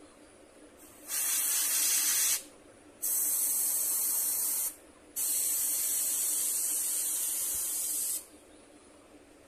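Airbrush spraying paint in three bursts of high hiss, the first two about a second and a half long and the last about three seconds, stopping short between them.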